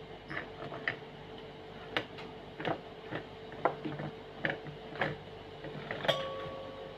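Irregular light clicks and taps as leaf-wrapped packets are handled and set down on a steel plate. About six seconds in, a sharper clink leaves a brief metallic ring.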